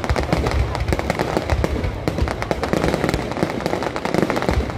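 Fireworks display: a dense, irregular barrage of overlapping bangs and crackles, with no break.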